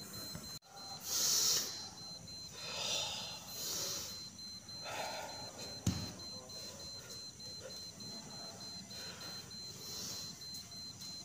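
Several short hissing breaths and movement rushes from a person practising silat strikes and steps, with one sharp foot thump on the floor about six seconds in.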